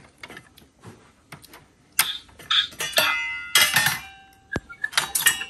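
Toy stove's plastic burner knob clicking as it is turned, then a small stainless-steel pot and its lid clinking and clattering, with a brief metallic ring after the louder strikes about two to four seconds in.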